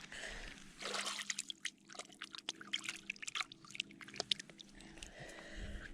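Water splashing and trickling, with many short sharp ticks and splashes scattered throughout.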